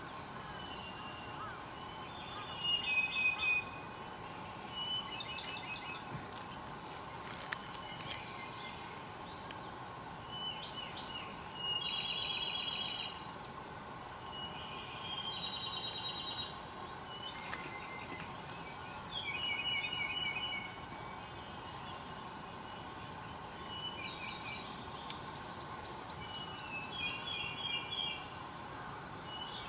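Wild songbirds singing: short trilled phrases, repeated every few seconds at varying pitches, over a steady background hum.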